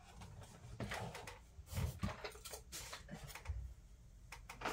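Hands rummaging among small objects, most likely hunting for a polish magnet: a scatter of short clicks and knocks, the loudest near the end.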